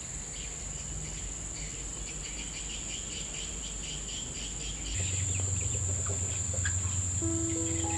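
Steady high-pitched drone of insects with rhythmic chirping calls over it. About five seconds in a low hum joins, and near the end a melodic instrumental tune begins.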